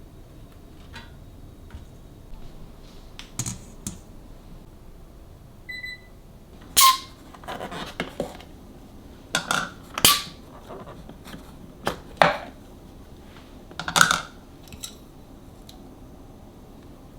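Kitchenware being handled: a series of knocks and clatters as dishes or containers are picked up and set down, the loudest about halfway through and near the end, with one short high ringing tone about 6 seconds in.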